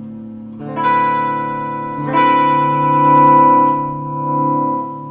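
Squier Classic Vibe Starcaster semi-hollow electric guitar played through an amplifier on its bridge pickup with the tone knob turned fully up. A chord is strummed about a second in and another about two seconds in, each left to ring out.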